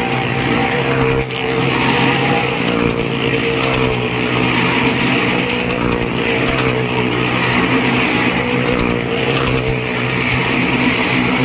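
Engines of a car and a motorcycle running steadily at speed as they circle the wooden wall of a well-of-death drum, a loud continuous drone at a near-constant pitch.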